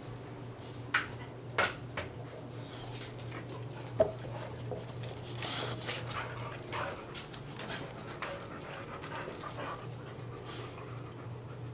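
Dogs panting and scuffling close by, with a few sharp knocks, the loudest about four seconds in, over a steady low hum.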